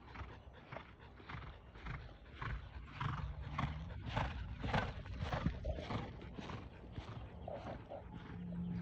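A horse cantering on a dirt arena, its hoofbeats coming in a steady rhythm of about two strokes a second. They grow louder toward the middle as the horse passes close, then fade as it moves away.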